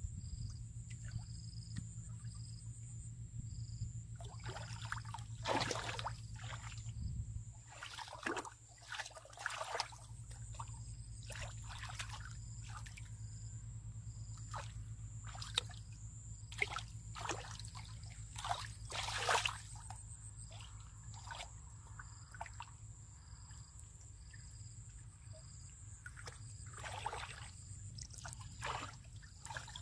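Hands groping through shallow muddy water, making irregular small splashes, sloshes and trickles, several louder ones scattered through.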